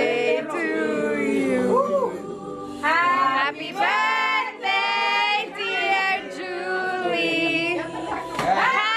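A group of people singing a birthday song together, several voices at once in phrases with long held notes.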